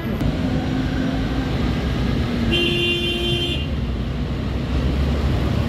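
Tram approaching the stop with a low, steady rumble that grows stronger. Midway through, a horn sounds once, for about a second.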